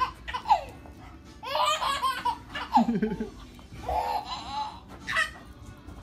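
A baby laughing in several bursts of belly laughs, the longest about a second and a half in, with shorter ones near the start, at four seconds and near the end.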